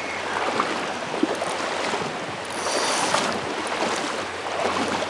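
Shallow river water rushing and splashing steadily over rocks, heard from among the current.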